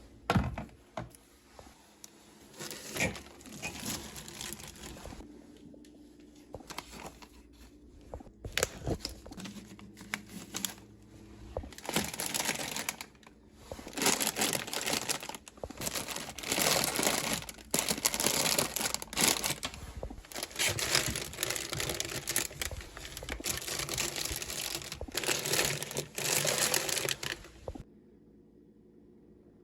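Plastic grocery bags crinkling and rustling in repeated bursts as groceries are unpacked, with a few sharp knocks of items being set down early on the way; the rustling stops shortly before the end.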